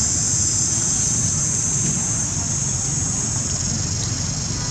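Steady high-pitched drone of insects over a constant low rumble of background noise.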